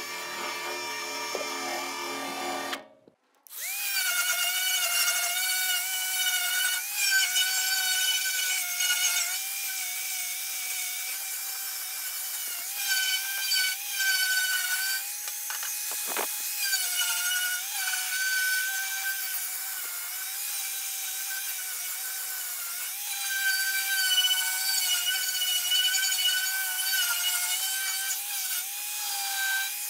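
A cordless drill spins a wire brush on the welder's casing for the first few seconds. After a short break, a small electric angle grinder runs steadily with an abrasive disc, taking paint and rust off the sheet-metal casing. Its whine drops a little in pitch each time the disc is pressed into the metal.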